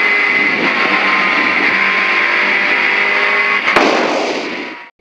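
Peugeot 106 GTi rally car's 1.6-litre 16-valve four-cylinder engine heard from inside the cabin, pulling at steady revs with road noise. A sharp click comes a little before four seconds in, then the sound fades and cuts off just before the end.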